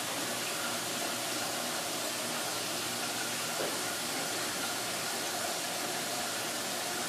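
Steady hiss of an aquarium's filter and aeration, water and fine bubbles running without a break, with one faint knock about three and a half seconds in.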